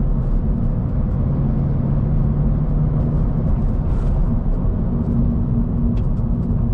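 Subaru BRZ's flat-four engine and Borla axle-back exhaust running steadily at low revs on light throttle, as when driving for best fuel economy, heard from inside the cabin with road rumble underneath.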